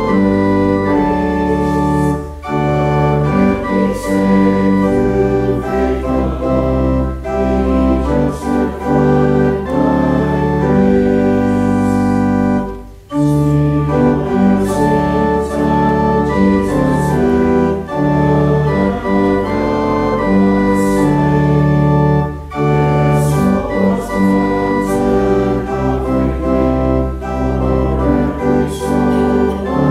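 Church organ playing a hymn in full, sustained chords, with a short break between phrases about 13 seconds in.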